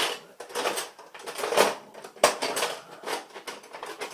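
Kitchen utensils and small objects clattering and knocking irregularly as someone rummages through a drawer, with a few sharper knocks among them.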